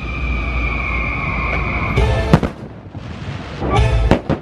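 Fireworks bursting over show music: a long steady note is held for the first two seconds, then a sharp bang comes a little past two seconds in, and a cluster of loud bangs follows near the end.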